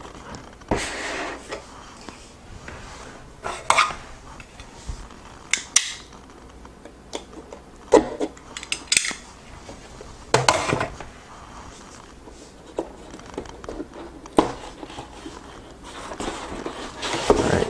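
A cardboard keyboard box being opened by hand: about ten separate knocks, taps and short scrapes of cardboard.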